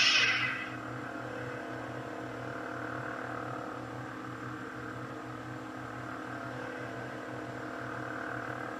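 Ultrasabers Emerald soundboard in a lightsaber hilt playing its steady idle hum through the hilt's small speaker, after the tail of the ignition sound dies away in the first second.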